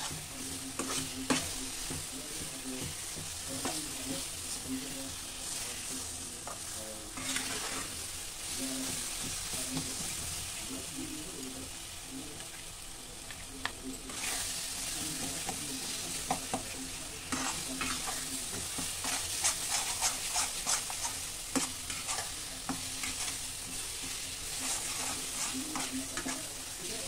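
Red chilli pickle masala frying in oil in a pan, sizzling steadily, while a spatula scrapes and stirs it, with the scrapes coming faster and denser in the second half. The masala is being roasted until the oil separates from it.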